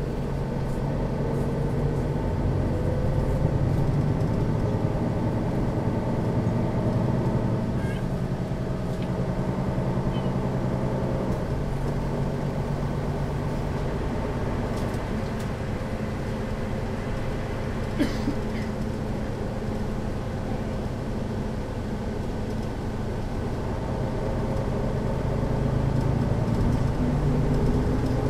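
Diesel engine of a 2008 Setra S 415 NF city bus idling steadily with the bus standing still, a low even hum. A single sharp click sounds about eighteen seconds in, and the engine grows a little louder near the end.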